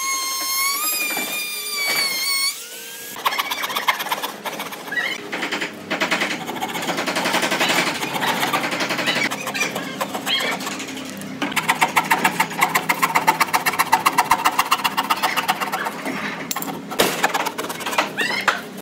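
A palm trim router runs with a high whine for nearly three seconds, then stops. A scroll saw's reciprocating blade then cuts through wood with a fast, even rattle, pausing briefly a few times.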